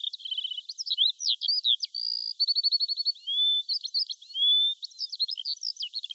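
Songbird singing a quick, varied song of slurred chirps and whistles, with a fast trill of repeated notes about two and a half seconds in and longer level whistles around three and four seconds.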